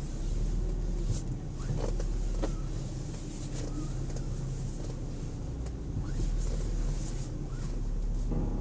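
2004 Chrysler Sebring with its engine running while the steering is turned. Several short creaks and clicks come from the driver's side front wheel, which the owner suspects is a bad lower ball joint or tie rod.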